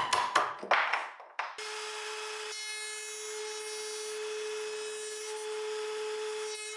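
A quick run of knocks, like hammer taps, dies away in the first second and a half, then a small electric power tool starts and runs steadily with a whine.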